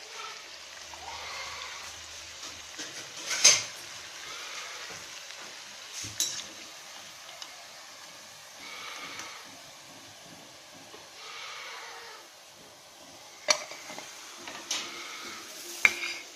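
A perforated steel skimmer scrapes and clinks against an iron kadhai as fried mathri are lifted out of hot oil, which sizzles faintly underneath. There are a few sharp metal-on-metal clinks; the loudest comes about three and a half seconds in, and others come near six, thirteen and sixteen seconds.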